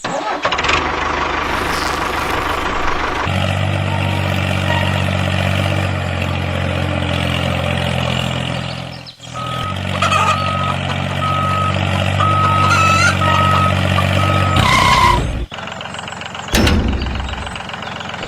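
A vehicle engine running steadily, broken briefly about nine seconds in, with a string of short high beeps like a reversing alarm over it in the second half.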